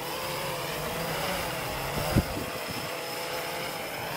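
Electric motor and propeller of a radio-controlled foam model aircraft whining steadily, its pitch wavering slightly with the throttle. A single thump about two seconds in.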